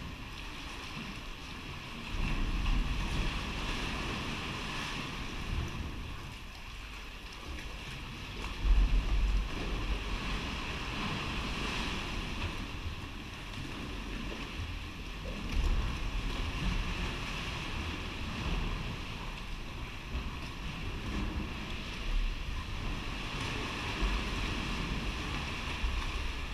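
Sea water sloshing and lapping around a sea kayak and against the rock walls of a sea cave, with wind noise on the microphone. There are a few louder low rushes, the strongest about nine seconds in.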